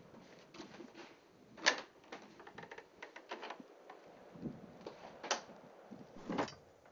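Clatter and knocks from objects being handled inside an outbuilding, with three sharper, louder clanks: about one and a half seconds in, about five seconds in, and near the end.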